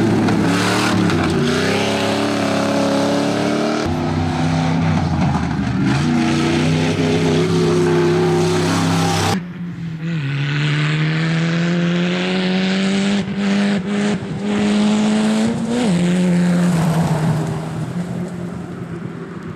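Off-road race vehicles' engines at full throttle, first a buggy, then a pickup truck, the pitch dipping and climbing with lifts and gear changes. After a sudden cut about halfway, the pickup's engine rises steadily in pitch as it accelerates, drops once at a gear change, then fades as it pulls away.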